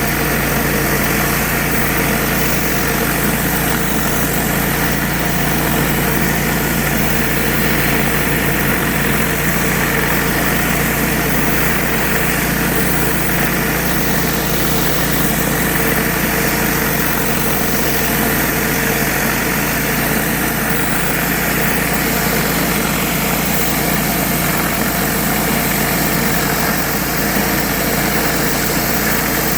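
Engine-driven pressure washer running steadily, with the even hiss of water spraying from a surface cleaner.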